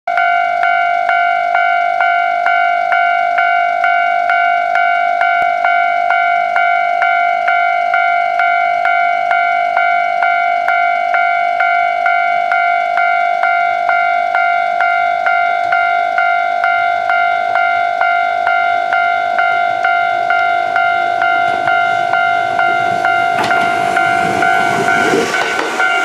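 Japanese level-crossing warning bell ringing steadily at about two strikes a second. About three seconds before the end, a Kintetsu 2800 series electric train rises in over it, its wheels and rails rumbling as it passes close by.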